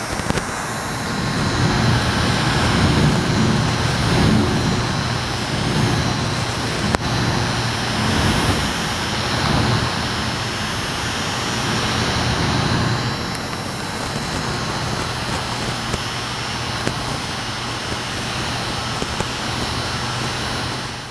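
Small fan of a miniature air conditioner running steadily: a rushing airflow with a low electric hum.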